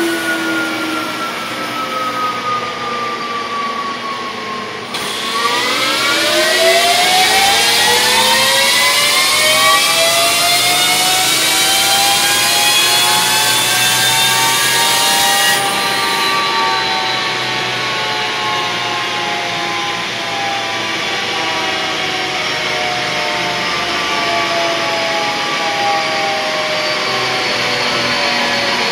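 2016 Victory Empulse TT electric motorcycle whining on a Dynojet chassis dyno, pitch falling as it coasts down. About five seconds in the whine climbs steadily through a dyno pull, then levels off and slowly falls away. A loud rushing noise runs underneath, strongest during the climb.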